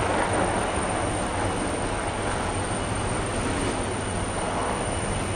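Steady rumble and hiss of a moving vehicle heard from inside, even throughout, with a thin high whine running over it.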